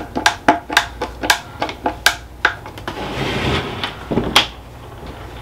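Hand screwdriver working screws into a wooden box: a run of sharp clicks, about three or four a second. Near the end there is a short scraping rattle and one loud clink as loose screws on the table are handled.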